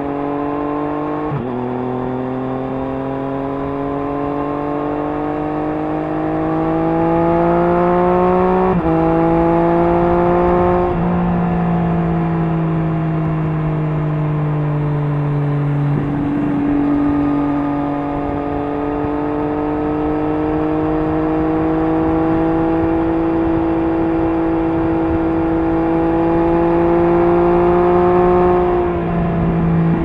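Triumph Street Triple S three-cylinder engine through an SC-Project SC1-R slip-on exhaust with dB-killer, heard from the rider's position while riding. The engine note rises slowly under gentle acceleration, with sudden pitch steps at gear changes about five times, over steady wind and tyre noise.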